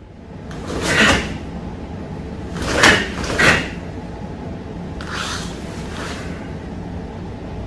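Swishes and snaps of a karate uniform as fast arm blocks and strikes are thrown, about five in all, the loudest a quick pair about three seconds in.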